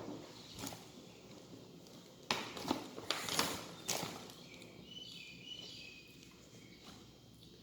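Wild birds chirping faintly with short, high calls in the second half, after a few sharp clicks and crunches from eating about two to four seconds in.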